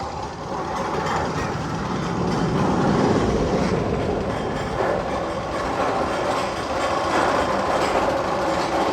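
Magnum XL-200 roller coaster train rumbling along its steel track, a steady loud clatter that swells a little about two seconds in and holds.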